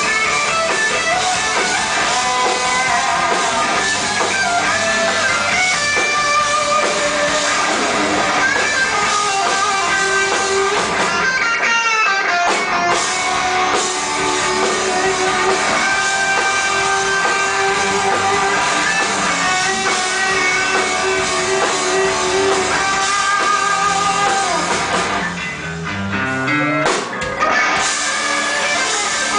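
Metal band playing live: distorted electric guitars over a drum kit in an instrumental passage. The band drops back briefly near the end.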